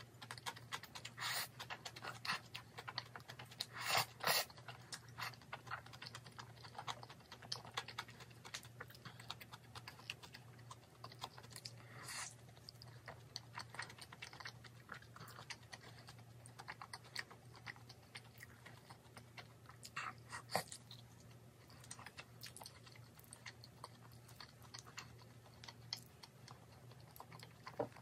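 Close-up sounds of eating jjajangmyeon (noodles in black bean sauce) and fried food: chewing and slurping with many small wet mouth clicks, loudest around four seconds in. A low steady hum runs underneath.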